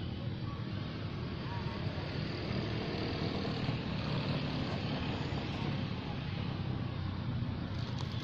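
Steady low rumble of background noise, even throughout with no distinct calls or impacts.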